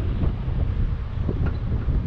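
Wind buffeting the microphone of an action camera mounted outside a Chevrolet Colorado ZR2, over the low rumble of the truck driving along a dirt trail, with scattered short knocks from the rough ground.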